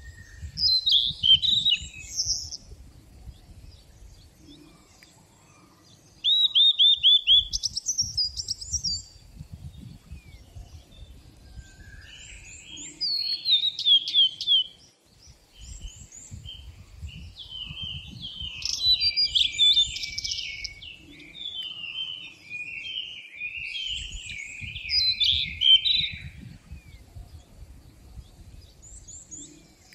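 Songbirds singing: short, fast phrases of chirps and trills come every few seconds, with quieter scattered calls between them.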